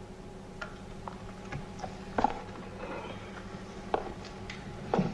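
Quiet room tone with a low steady hum, broken by a handful of short knocks and scuffs, the loudest a little over two seconds in and another near the end.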